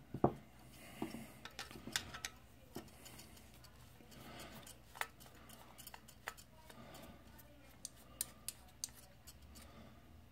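Faint, scattered light metallic clicks and ticks of a screwdriver turning small screws out of a projector lamp module's metal bracket, with the module being handled.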